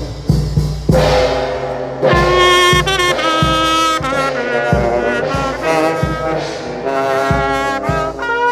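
Brass band music: a steady drum beat, with brass horns coming in about two seconds in to play a melody over it.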